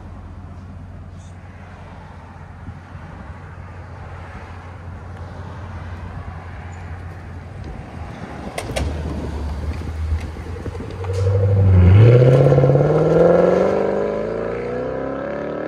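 2015 Lexus RC F's 5.0-litre V8 through Valvetronic Designs mufflers with the exhaust valves open, idling steadily. About eleven seconds in it accelerates hard as the car drives off, its note rising through the gears.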